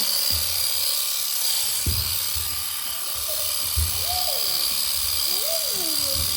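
Electric sheep shears running with a steady high whine while a lamb is dagged out, with irregular low knocks of handling. Rising and falling calls come in over the second half.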